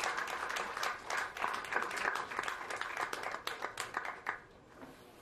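Audience applauding at the end of a talk, a dense spatter of hand claps that dies away about four seconds in.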